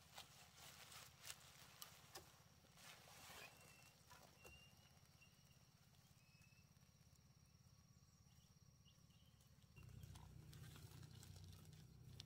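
Near silence: faint outdoor ambience with scattered soft clicks and rustles and a few brief faint chirps. A low hum under it gets louder about ten seconds in.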